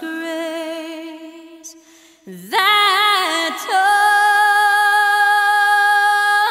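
A woman singing alone with no accompaniment: a slow melody that fades on one held note, slides up into a new phrase, then holds one long, steady note through the second half.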